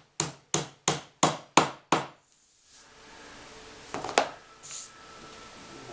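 Hammer driving a nail, six quick even blows about three a second that stop about two seconds in. A single louder knock comes about four seconds in.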